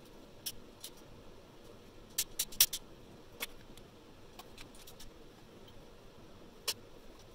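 Sharp metallic clicks from a hand crimping tool closing on a wire terminal, with a quick run of clicks about two and a half seconds in. Scattered lighter clicks of tool and wire handling follow.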